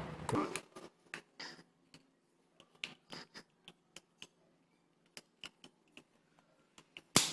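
Thin blade of a tester screwdriver prying at the seam of a plastic power bank case: scattered, irregular small clicks and scrapes of metal on plastic, with one louder click near the end.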